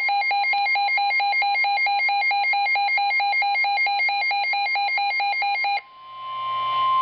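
Weather radio alert: a rapidly pulsing alarm tone over the steady 1050 Hz NOAA Weather Radio warning tone, announcing a warning. Near the end the pulsing stops, leaving the steady tone over faint radio hiss.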